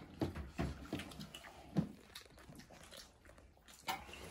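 Close-up mouth sounds of people eating rice and buffalo curry by hand: chewing and irregular wet lip smacks. Near the end comes a louder sip of soup from a bowl.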